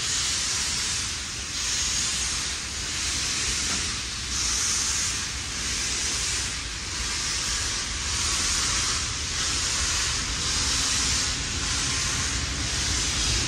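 Steam exhaust chuffing from the Garratt steam locomotive 6029 as it pulls its train away, a hissing beat about once a second, over the low rumble of the carriages rolling past.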